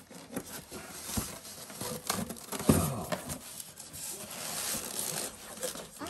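Cardboard and styrofoam packing being handled and pulled out of a box: irregular rustling and scraping, with a louder bump about halfway through.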